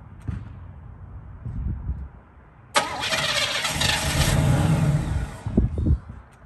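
Engine of an old Chevrolet sedan being cranked over, starting suddenly about three seconds in and running for about three seconds before it stops, with a couple of thumps at the end.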